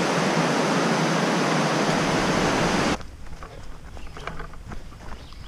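Loud, steady rush of white-water river rapids, which cuts off abruptly about three seconds in. It gives way to quieter, irregular footsteps on a dirt trail.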